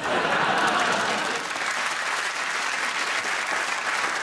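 Studio audience applauding: the clapping starts suddenly and holds steady.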